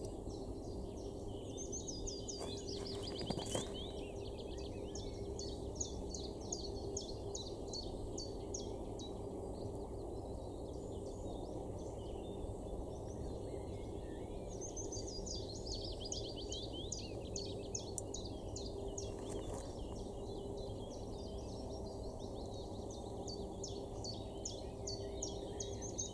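Songbirds singing from the reeds and trees around a lake, a fast chattering run of short repeated high notes that stops for a while midway and picks up again, over a steady outdoor hiss with a faint low hum. A few light clicks sound about three seconds in.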